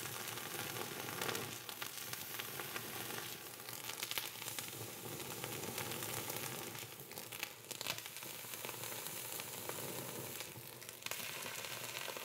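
Sugar on top of leite creme sizzling as a red-hot burning iron is pressed onto it, burning the sugar into a caramel crust; a steady sizzle with scattered small ticks.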